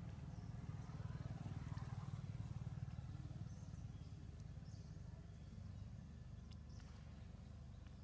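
Faint, steady low engine drone, a little louder between about one and three seconds in.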